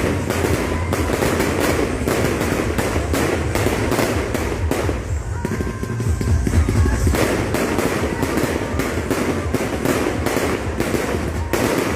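Fireworks display going off in a rapid, continuous barrage: dense crackling bangs one on top of another over a steady low rumble, with no pause.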